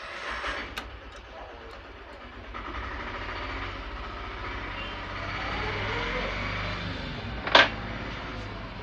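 Desoldering an LED from a washing-machine circuit board: a steady hiss over a low hum, with one sharp click a little before the end.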